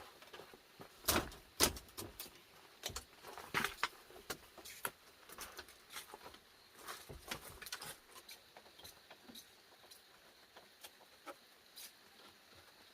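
Irregular light knocks and clicks of objects being handled, loudest twice just after a second in, then growing sparser and fainter.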